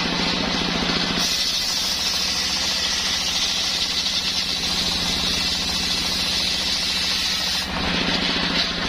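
Engine-driven homemade circular saw running steadily, its blade cutting through coconut-palm wood: a high, hissing sawing noise comes in about a second in and stops near the end, leaving the engine running on.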